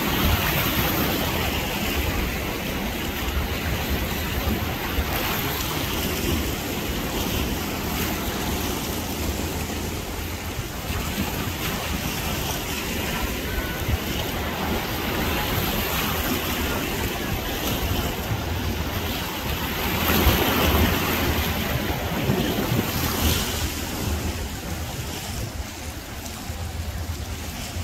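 Wind buffeting the microphone over choppy river water splashing against a rocky shore, a steady rush with a low rumble that swells about two-thirds of the way through.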